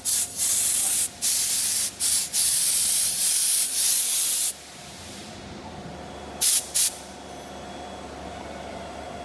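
Compressed air hissing out in long blasts with brief gaps, stopping about halfway through, then two short puffs a couple of seconds later. A faint steady machine hum runs underneath.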